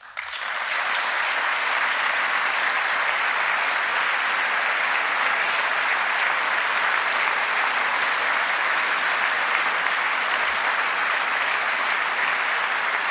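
A large audience applauding in a big hall, swelling up within the first second and then holding steady and dense.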